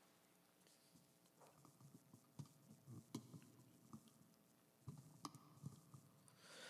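Near silence in a pause of Quran recitation, with a few faint scattered clicks and a soft breath near the end.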